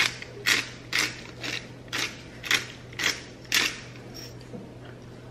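Hand pepper grinder cracking peppercorns: rasping crunches in an even rhythm of about two twists a second, fading out about four seconds in.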